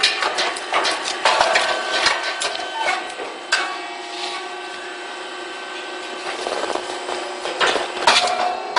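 Puffed-grain cake machine at work: a run of sharp knocks and clacks, several a second, easing off midway and returning near the end, over a steady tone.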